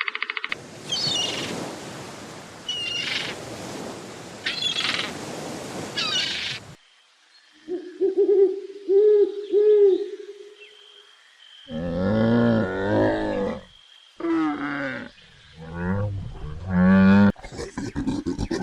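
A sequence of different animal calls: first four short high calls over a steady hiss, then a run of four short hoots, then several deep, drawn-out calls.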